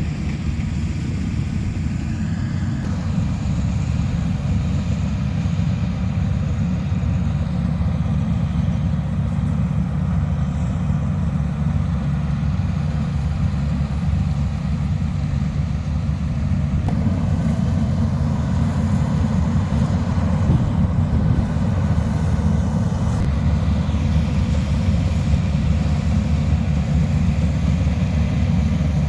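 Engine of a farm machine hauling in a harvested rice field, running with a steady low drone.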